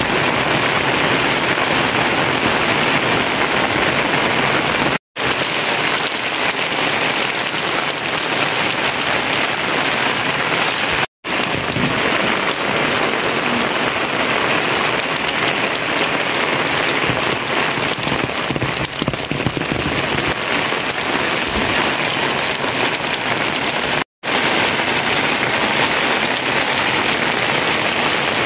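Steady rain falling on roofs and muddy ground, an even hiss at a constant level. It breaks off to silence for an instant three times.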